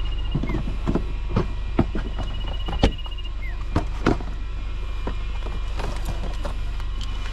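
A steady low rumble, with scattered light clicks and knocks from gear being handled in a car's packed cargo area.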